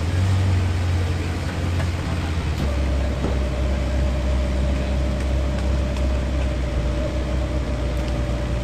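An engine idling steadily, a low drone that drops slightly in pitch about two and a half seconds in, when a thin steady whine joins it.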